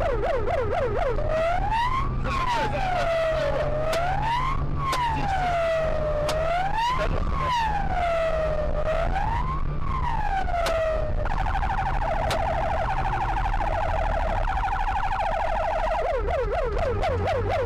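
Police car siren switching between modes: a fast yelp at first, then a slow wail rising and falling about every two and a half seconds, then a steady rapid warble for about five seconds, and the fast yelp again near the end. A low steady engine hum runs underneath.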